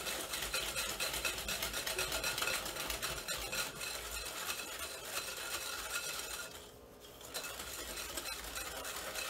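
Wire whisk beating eggs and sugar in a glass bowl: rapid scraping, clicking strokes of the wires against the glass, with a brief pause about two-thirds through. The mixture is being beaten until the sugar dissolves.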